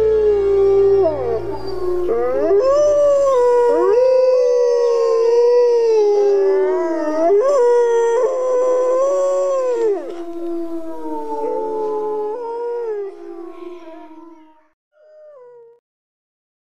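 Wolves howling in chorus: several long, overlapping howls that slide up and down in pitch, dying away near the end with one last short howl. A low music drone underneath fades out in the first few seconds.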